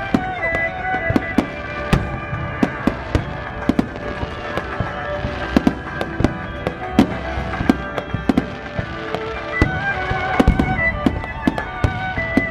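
Fireworks bursting in many sharp, irregular bangs, often several a second, over music with long held notes that accompanies the display.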